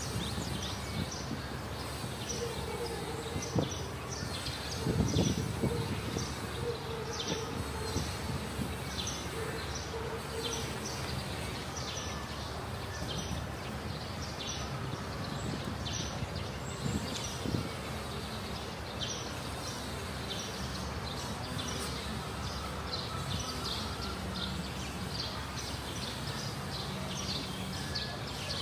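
Outdoor ambience: short high chirps repeat about once or twice a second throughout, over a steady low rumble, with a louder low thump about five seconds in.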